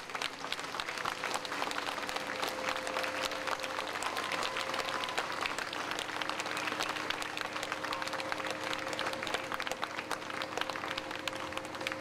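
Crowd applauding, with continuous dense clapping over a steady low hum.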